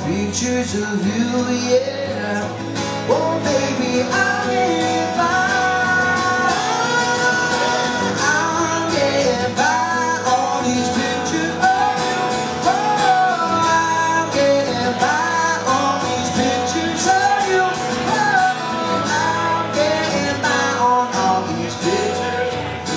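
A man singing a held, bending melody over a steadily strummed acoustic guitar, played live.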